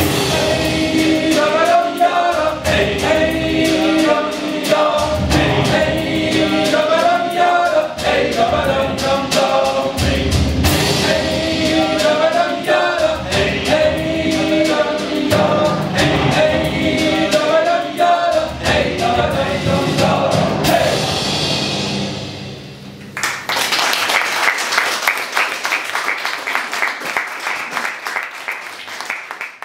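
Mixed choir singing. The song ends about 22 seconds in, and the audience applauds until the end.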